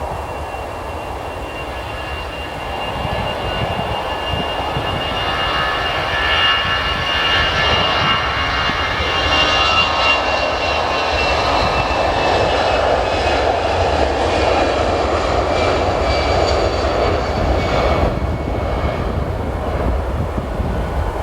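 Jet airliner's engines passing: a steady rumble with a high whine that drifts slightly lower in pitch as the aircraft goes by, growing louder from a few seconds in.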